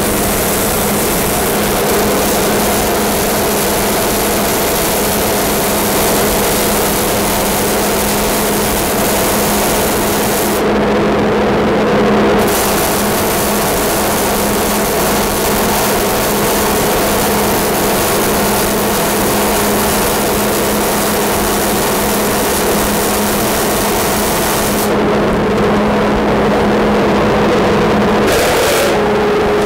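Millermatic 211 MIG welder arc in gas-shielded mode, running in long beads and stopping twice, briefly about 11 seconds in and again for a few seconds near the end, over the steady drone of a dust collector used as a fume extractor.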